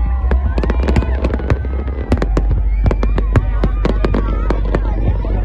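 Fireworks display: a dense, irregular run of sharp cracks and bangs, several a second, over a steady low rumble.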